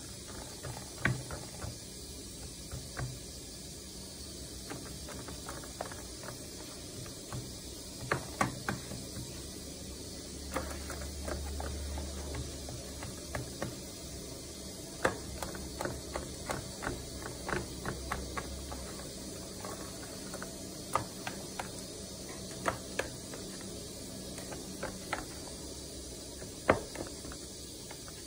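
Kitchen knife cutting through milk-soaked güllaç in a round metal tray, the blade ticking and scraping against the tray bottom in scattered, irregular clicks.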